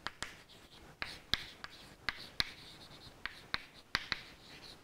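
Chalk tapping and scratching on a chalkboard as a heading is written by hand: sharp, irregular taps, about two or three a second, with faint scraping between them.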